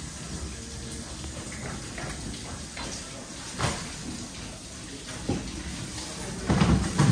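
Knocks and slaps of a remora carcass and fillet being handled on a plastic cutting board, over a steady background hiss; a sharp knock comes about three and a half seconds in and the loudest thumps near the end.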